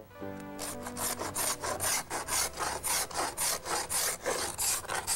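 A hand tool rasping back and forth on weathered wooden clapboard siding, stripping the old surface by hand: even strokes, about three a second, starting about half a second in.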